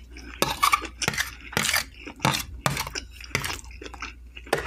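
Metal fork clinking and scraping against a clear patterned serving plate, in a string of irregular sharp clicks and a few short scrapes, as food is gathered up from the plate.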